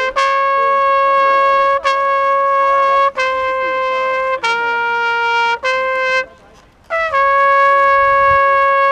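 Drum corps brass horns playing a string of held notes, about a second each with short breaks, mostly on one pitch with one a little lower. After a brief pause, a long note starts about seven seconds in and is held to the end.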